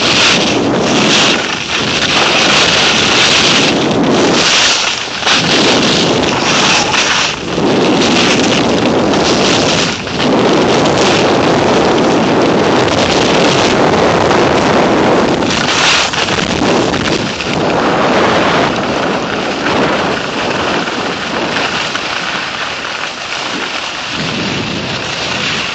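Wind buffeting the microphone and skis hissing and scraping over packed snow during a fast downhill run, with uneven surges, easing a little near the end as the skier slows.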